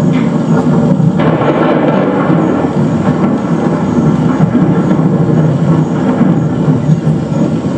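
Recorded thunderstorm soundscape played over a theatre's sound system: a loud, continuous low rumble of thunder and storm noise with no break.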